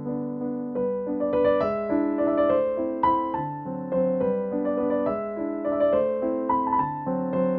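Background music: a light piano melody of steady, gently stepping notes.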